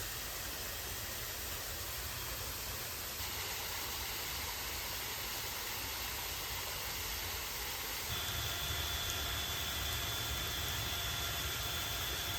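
Steady rushing of stream water, an even hiss with a low rumble underneath. About eight seconds in, a thin steady high tone joins it.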